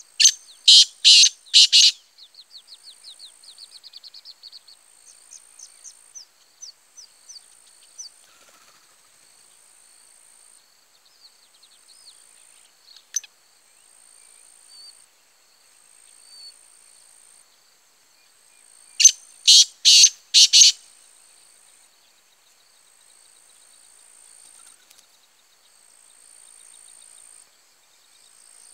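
Black francolin calling twice, each call a loud series of four sharp notes, one near the start and one about 19 seconds in. Insects buzz in an even repeating pattern and small birds chirp faintly between the calls.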